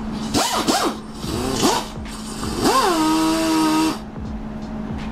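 Drill spinning a stone hone in the bore of an old brake wheel cylinder, cleaning the rusty bore before a rebuild. It comes in two short bursts, then a longer run of about a second and a half whose whine rises and levels off, over a steady low hum.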